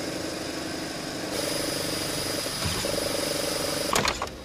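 Braille embosser printing, a steady mechanical chatter of rapid ticks over a machine hum that grows louder about a second and a half in. A sharp knock comes near the end.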